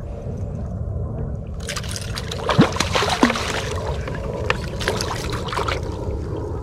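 A hooked bluefish thrashing and splashing at the surface beside the kayak: a burst of splashes starts about two seconds in, is loudest soon after, and dies down near the end, over a steady low rumble.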